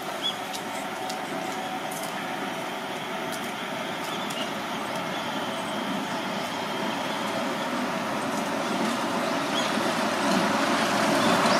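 Seibu 8500 series rubber-tyred guideway train approaching, its running noise rising steadily as it comes closer.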